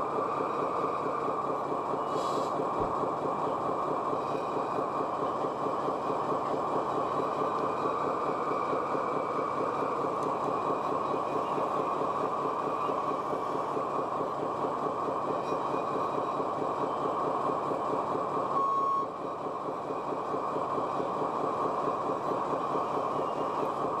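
Radio-controlled scale construction models running with a steady mechanical drone and whine. About 19 seconds in there is one short reversing beep, and the drone dips briefly after it.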